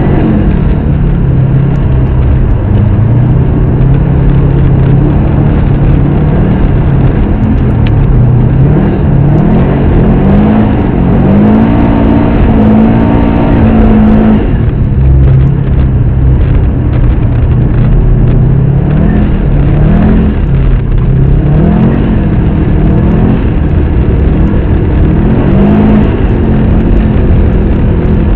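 Race car engine under hard racing load, its pitch rising and falling as it accelerates, shifts and lifts off for the turns. It holds a high note about twelve seconds in, then drops sharply.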